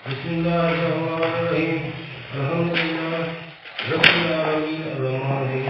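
A man's voice chanting a prayer (dua) in three long, drawn-out phrases, with a sharp click about four seconds in.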